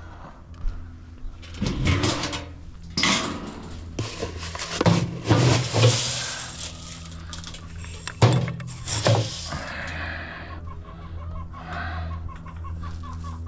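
Chickens clucking, with several loud, noisy bursts in the first half and a steady low hum underneath.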